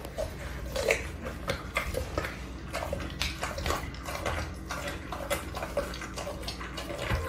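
A pit bull-type dog chewing and tearing at a whole raw chicken: irregular wet smacking and crunching, many sharp mouth sounds in quick succession.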